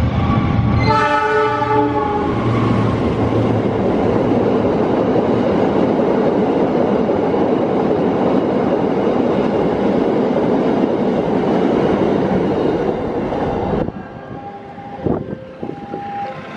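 Diesel locomotive passing at speed with a long train of empty rail-carrying flat wagons: a short horn blast about a second in, then the steady rumble and clatter of the wagons over the track. The noise drops off abruptly near the end, leaving a level-crossing warning signal chiming in a repeating two-note pattern.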